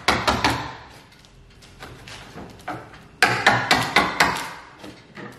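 Quick runs of sharp hammer taps, about six a second, one at the start and another a little past the middle with a quieter gap between: wedges being knocked into the seam of a fibreglass boat mould to split the halves and release the hull.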